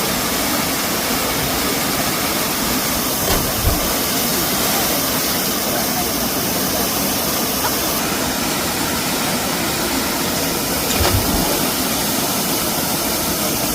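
Steady rushing roar of a waterfall, a dense even wash of falling water, with two brief low thumps about three and a half seconds in and about eleven seconds in.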